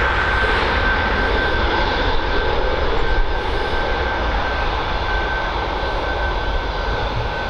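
Boeing 737-800's CFM56-7B jet engines at takeoff thrust during the takeoff roll: a steady rumble and rush of jet noise with a high whine held on one note, easing slightly toward the end as the aircraft moves away.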